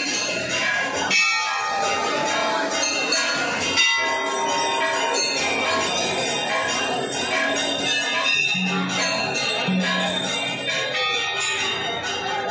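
Brass temple bells rung over and over by many hands, their ringing tones overlapping in a continuous clangour with occasional sharper strikes.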